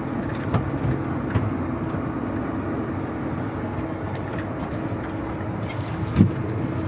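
Tractor engine running steadily while pulling a Hesston 2290 hay baler across the field, with a few short knocks and thumps from the rig, the loudest about six seconds in.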